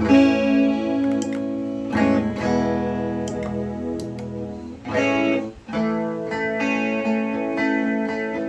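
Electric guitar chords strummed and left to ring, played through a Zoom MS-70CDR+ chorus/delay/reverb multi-effects pedal, with a fresh strum every two or three seconds.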